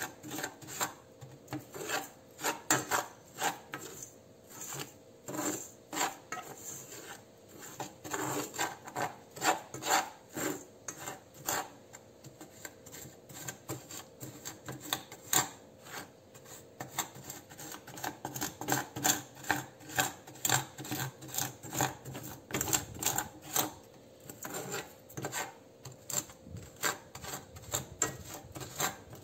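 Metal spoon scraping and stirring dry, granular soil in a metal saucepan, in quick irregular strokes several times a second, as the soil is heated dry.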